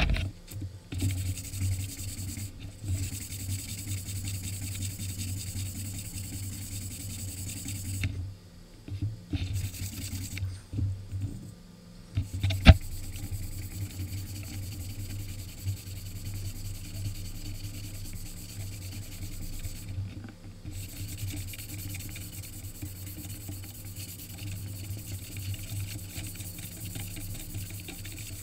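Sanding disc rubbed by hand along a rusty steel sword blade, a steady scratchy scrubbing with a few short pauses, to take the rust off. One sharp knock stands out about halfway through.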